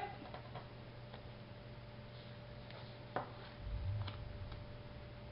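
Quiet handling of cardstock: a sharp click about three seconds in and a low bump just after, as a layered paper panel is set down on a folded card base, over a faint steady hum.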